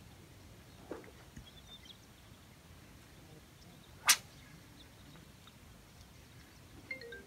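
A single quick, sharp swish of a spinning rod being cast, about four seconds in, over quiet outdoor background. A few chime-like musical notes start near the end.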